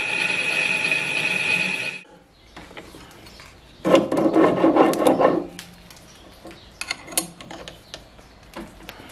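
A homemade metal lathe cutting steel, a steady sound with a strong high ringing tone, cuts off abruptly about two seconds in. Then a loud burst of scraping metal, and a few sharp metallic clicks as a spanner works the tool holder's bolts.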